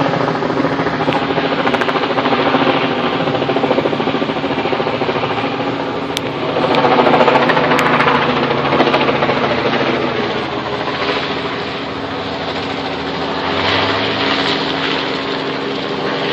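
News helicopters flying overhead: a steady, rapid rotor chop over an engine drone. It swells about seven seconds in and again near the end.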